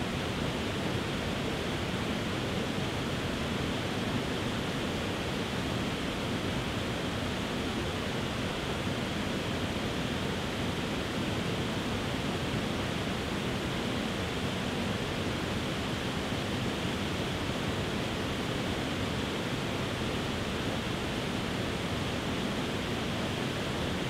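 A tiered waterfall pouring over rock ledges into a rocky pool: a steady, unbroken rush of falling water.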